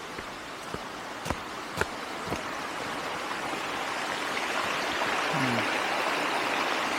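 Spring water running and splashing steadily, growing gradually louder, with three sharp clicks in the first two and a half seconds.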